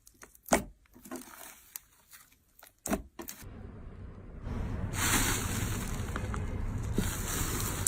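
Slime being handled: a few scattered crunches and crackles, then from about three and a half seconds in a steady hiss over a low rumble, louder from about five seconds in.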